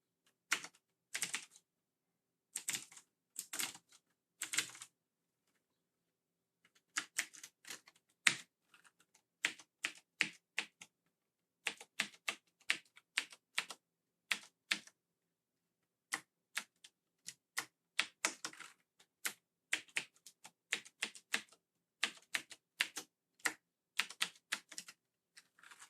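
Keys of a Razer mechanical keyboard being pressed one by one and in short runs, each giving a sharp click at an uneven pace, with a pause of about two seconds early on; the keys are being tested after the keyboard was cleaned.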